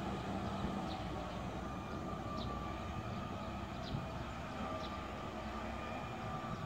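Distant reach stacker lifting a shipping container: its engine and hydraulics give a steady hum with a faint whine over a low rumble. Faint short high chirps come now and then.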